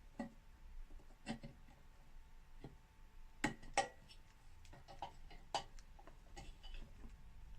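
Irregular small clicks and knocks, hand tools working at an old oil lamp to get a handle off. The two loudest come close together about halfway through.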